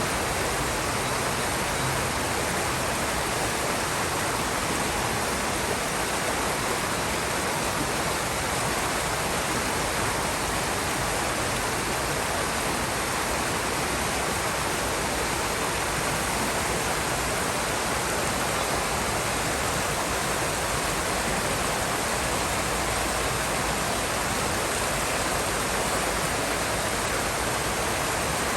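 River water rushing and splashing steadily over rocks.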